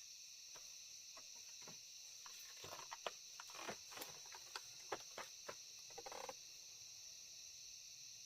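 Steady high-pitched chorus of crickets, with a run of short clicks and snaps through the middle, the loudest few between about three and five seconds in.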